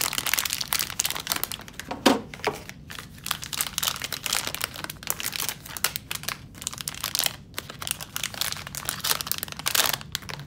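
Foil ink-cartridge pouch crinkling and crackling as it is handled and pulled away from the cartridges, with one louder crackle about two seconds in.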